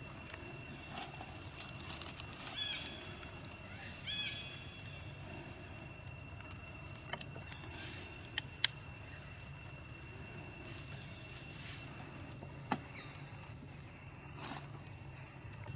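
Outdoor background sound: a steady low rumble under a thin, steady high whine, with short high chirps about two and a half and four seconds in, and a few sharp clicks in the middle.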